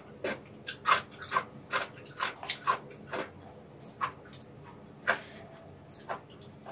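Close-up eating sounds of warm vegetable noodles: a quick, irregular run of wet clicks and smacks from chewing, about a dozen in all, thinning out after about three seconds.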